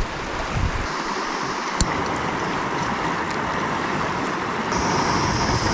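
Steady rush of a swollen river's flowing water. A single sharp click about two seconds in, and a higher hiss joins near the end.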